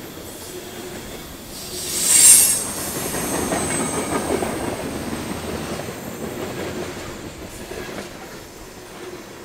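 Freight cars of a Norfolk Southern manifest train rolling past at close range, their wheels clattering on the rails. About two seconds in, a brief, loud, high-pitched squeal comes from the wheels.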